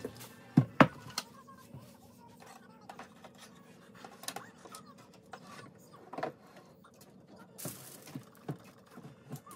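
Wooden tabletop easel being handled and set up on a desk: sharp wooden knocks and clacks, the loudest two close together under a second in, then scattered lighter knocks and a brief rustle near the end.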